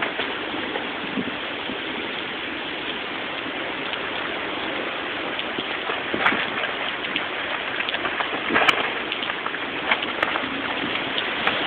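Hurricane Irene's rain falling steadily as a hiss, with scattered sharp taps of drops.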